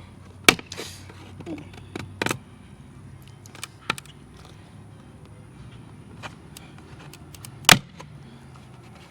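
Plastic retaining clips of an Infiniti Q50's factory side-mirror cap popping loose as it is pried off: a few sharp snaps, the loudest about half a second in and near the end, with smaller clicks between.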